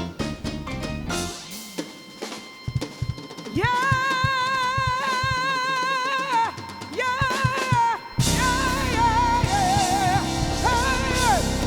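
Live soul band: a singer holds long notes over sparse drum hits, then the full band comes in about eight seconds in while the voice carries on with vibrato.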